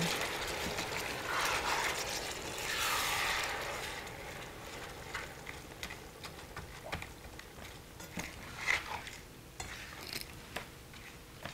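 A spatula scraping and tapping against a stainless steel frying pan as apple slices in sugar syrup are stirred, in many short irregular clicks and knocks. There are a couple of soft hisses from the pan in the first few seconds.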